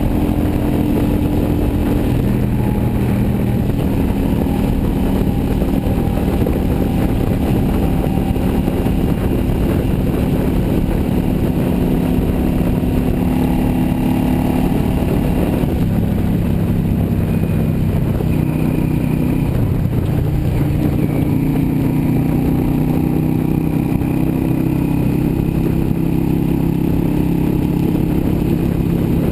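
Yamaha V Star 650 Custom's V-twin engine running steadily at highway cruising speed, heard from the handlebars with wind rushing over the microphone. The engine note drops a little about halfway through as the bike eases off.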